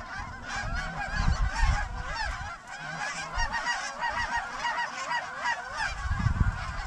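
A flock of large birds calling overhead: many short calls that rise and fall and overlap in a steady chorus, with a low rumble now and then.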